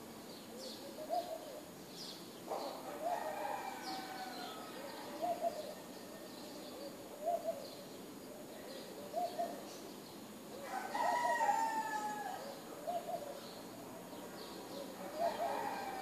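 Rooster crowing three times, each crow a drawn-out call of about a second and a half, the loudest one in the middle. Between the crows, high chirps of small birds and a short two-note call repeating about every two seconds.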